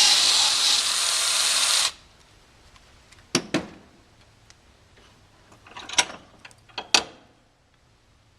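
Electric drill boring the old wooden handle out of a forging hammer's eye, running steadily and stopping abruptly about two seconds in. It is followed by a few sharp knocks, two close together and then three more.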